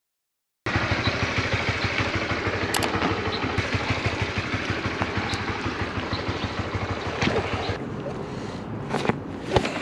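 Motorcycle engine running with a fast, even pulse, coming in suddenly about half a second in and easing slightly near the end, with two short knocks in the last second.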